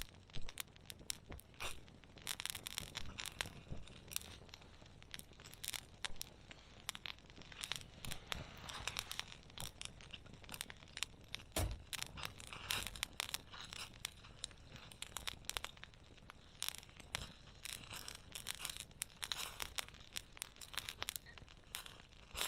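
Wood campfire crackling, with many irregular sharp pops and snaps over a soft steady hiss.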